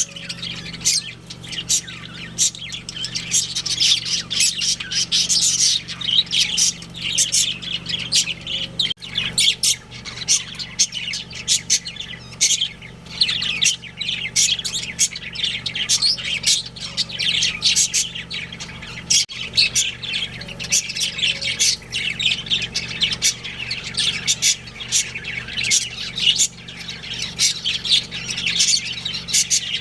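Several budgerigars chattering, with rapid, overlapping chirps and squawks that never let up.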